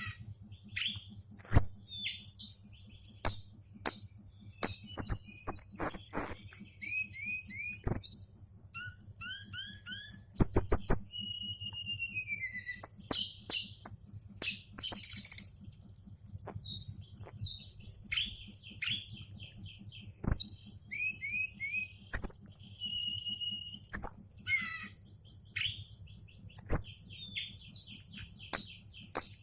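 A songbird singing a varied, fast song of short chirps, quick down-slurred notes, trills and clear whistles, over a steady high-pitched buzz.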